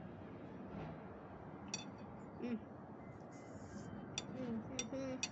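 Metal fork clinking against a ceramic bowl a few times while eating noodles, one clink about two seconds in and several more near the end.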